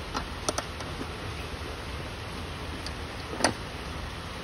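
Light metallic clicks and taps from hands fitting hardware on a motorcycle seat: three quick ones in the first second and a sharper one near the end, over a steady low hum.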